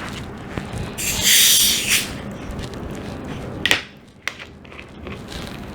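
Screw cap of a room-temperature 1-litre bottle of Diet Coke twisted open: the carbonation hisses out for about a second, followed by two sharp clicks of the cap and bottle.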